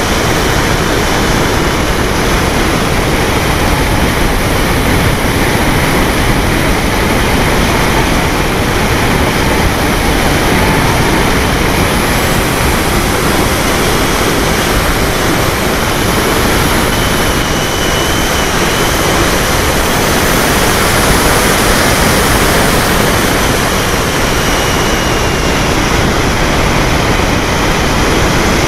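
Steady rush of wind and propeller noise picked up by a camera riding on a Polaris model seaplane in flight, with a faint high motor whine that shifts slightly in pitch a few times.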